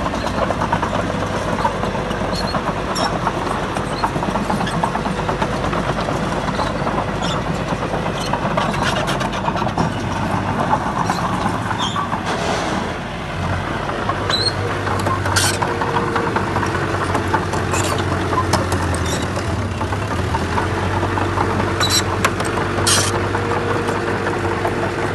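Heavy diesel earthmoving machinery running steadily, with scattered sharp clicks. The engine note shifts and grows a little stronger about halfway through.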